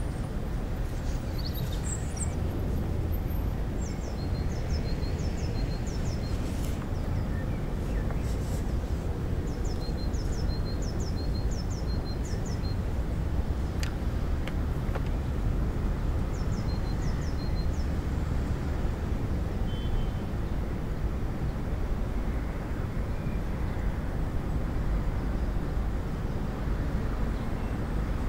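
Outdoor park ambience: a steady low rumble of distant traffic, with a small bird giving short runs of four or five high chirps three times. A few faint clicks and rustles come through as well.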